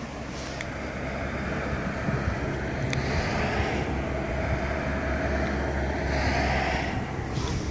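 Outdoor background rumble and hiss, swelling through the middle and easing off near the end, with one sharp click about three seconds in.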